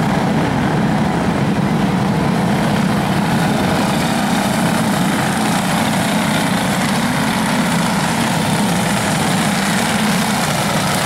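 A pack of racing karts with Briggs & Stratton Animal single-cylinder engines running together around a dirt oval, their engines blending into one steady drone.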